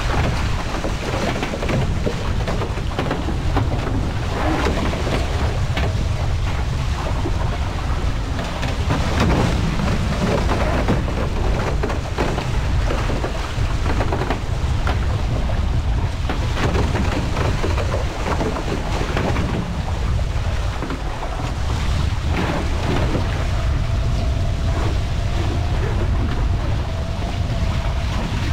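Wind buffeting a camera microphone mounted high on a foiling A-Class catamaran, over the rushing hiss and spray of water off the hull and foils at speed. A faint steady whine comes in near the end.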